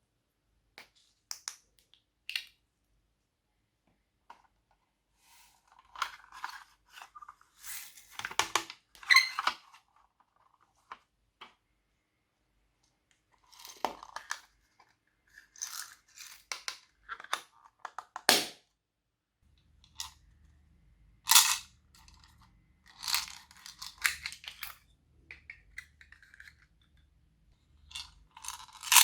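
Glossy slime being squished and kneaded by hand: irregular sticky pops, clicks and crackles in separate bursts with short pauses between them.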